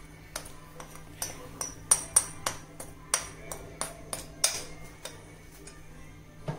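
A metal spoon clinking and scraping against a bowl, about a dozen sharp taps, roughly three a second, as rice flour is knocked out into a steel mixer-grinder jar; the tapping stops about two-thirds of the way through.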